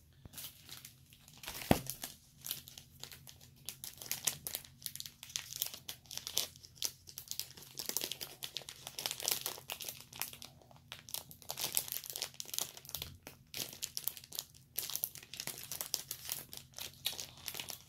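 Packaging being handled and packing tape pulled off by hand: a steady run of irregular crinkling and crackling, with one sharper click about two seconds in.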